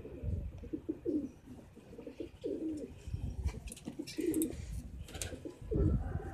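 Domestic pigeons cooing over and over in a loft, with low bumps and a couple of sharp clicks.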